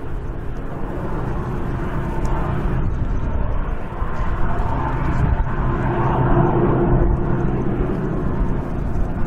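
Diesel locomotive on a coal train running as the train approaches, a steady low rumble with a faint tone that swells and fades about six seconds in.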